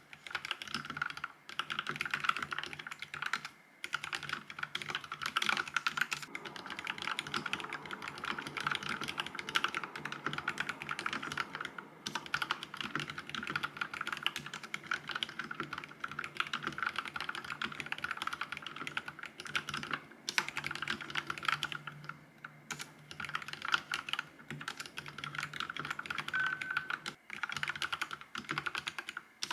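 Vissles V84 wireless mechanical keyboard being typed on fast and continuously, a steady patter of key presses with a few brief pauses.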